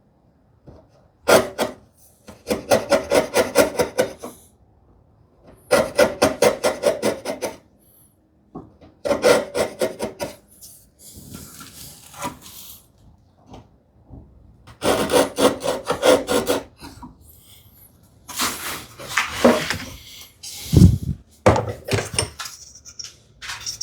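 A hand tool worked back and forth against wood in quick, even strokes, about seven a second, in several short bouts with pauses between them.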